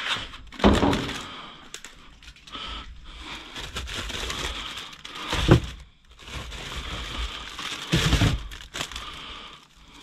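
Plastic packaging rustling and crinkling as salvaged food is handled and put in, with a few thuds and knocks; the sharpest knock comes about five and a half seconds in.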